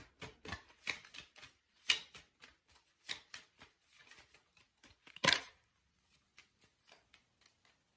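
Soft clicks and slaps of tarot cards being shuffled and handled, several a second at first, with one louder snap a little after five seconds in, then thinning out.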